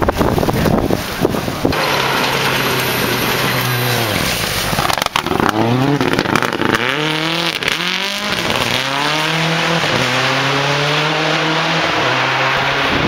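Rally car engine revving hard through a gravel hairpin, its pitch dropping and climbing several times as it shifts and accelerates, with a few sharp cracks about five seconds in. The car then pulls away on a steady note, its tyres throwing gravel.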